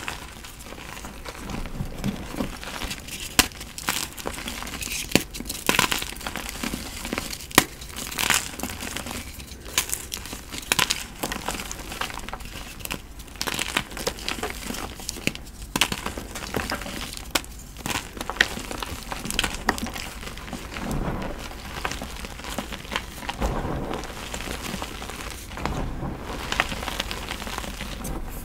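Blocks of gym chalk being crunched and crumbled by hand: a steady, irregular run of crinkling and crunching with many sharp cracks.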